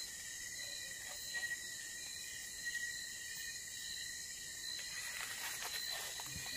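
Steady high-pitched chorus of night insects, crickets trilling, with a few faint rustles.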